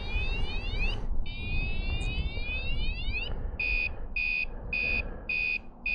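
A cheap add-on motorcycle alarm siren sounding after being set off. It cycles through its tones: a fast run of rising electronic whoops, then a steady beep-beep at about two beeps a second.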